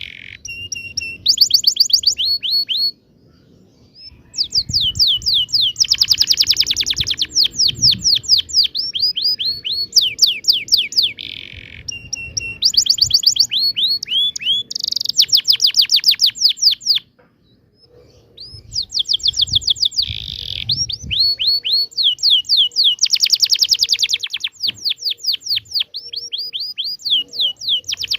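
Domestic canary singing a long rolling song: fast trills of repeated, high down-sweeping notes, phrase after phrase, with two short breaks.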